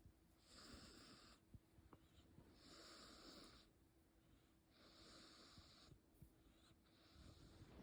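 A cat snoring faintly. There are four hissing breaths, each about a second long, coming about every two seconds in a steady sleeping rhythm.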